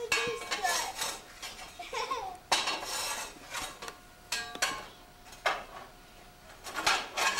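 Scraping and rubbing in a brick fireplace as children work inside the firebox: several short rasping strokes with small clatters. A young child's brief vocal sounds come in the first two seconds.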